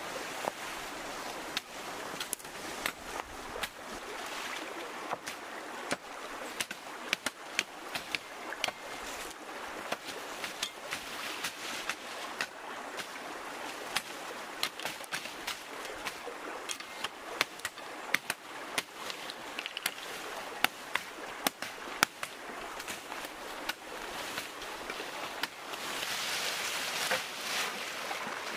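Cut leafy branches and bamboo poles being handled and dragged, with frequent sharp cracks of snapping twigs and knocks, over a steady wash of shallow water. Near the end the leaves rustle louder, close by, as the branches are laid over logs.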